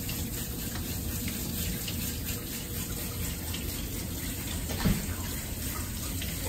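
Water spraying steadily from a handheld grooming-tub spray nozzle as it rinses a dog's wet coat. A single brief knock comes about five seconds in.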